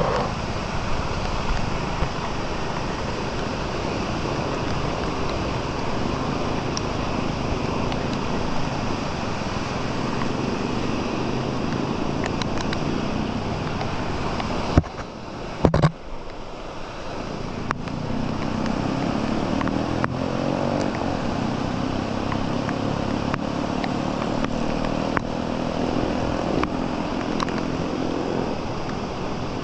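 Steady heavy rain with rushing water. About fifteen seconds in the sound drops out briefly, with a few sharp knocks.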